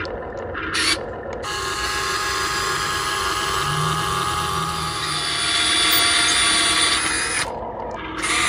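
Small electric motor and gears whining steadily, cutting out briefly twice near the start and once near the end.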